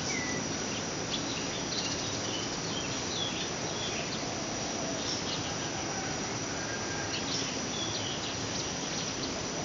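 Ambient background of a steady, high-pitched insect drone with short bird chirps scattered throughout, over a constant low hiss.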